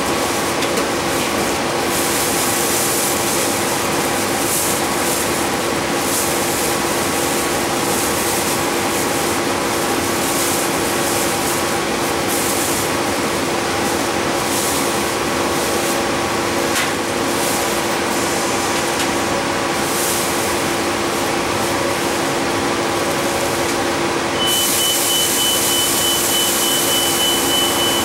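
Transit bus running, heard from inside the passenger cabin: a steady drone of the engine and drivetrain with several steady whining tones. About 24 seconds in, a loud hiss and a steady high electronic tone start together and carry on for several seconds.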